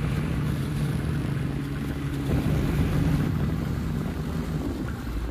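Snowmobile engine running steadily, heard from the rider's seat.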